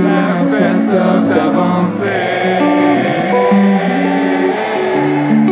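Live concert music: a large crowd singing a slow, wordless melody in long held notes over the band.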